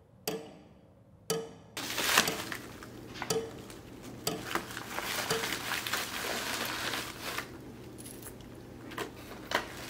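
Paper bag rustling and small glass bottles clinking as they are handled and set down, with many sharp clicks through the rustle.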